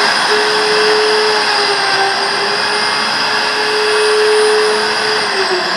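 Handheld electric router with a 1/4-inch bit running at full speed, cutting a round inspection hole in aluminum wing skin along a template plate: a steady high whine over a dense cutting noise. Near the end the trigger is released and the motor's pitch winds down.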